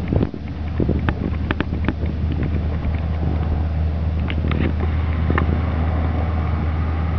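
A steady low mechanical hum with a scattering of short, light clicks over it.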